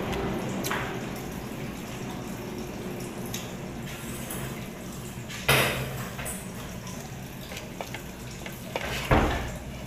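Plates and tabletop being handled: two sharp knocks, one about halfway and one near the end, over a steady low hum.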